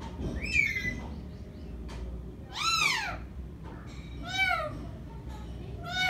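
Caged green parakeet giving several drawn-out calls, each rising then falling in pitch, the loudest about three seconds in.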